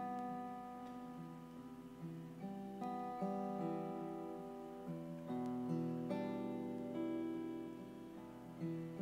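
Acoustic guitar strummed in chords, the chords changing about every second, played as instrumental music with no singing.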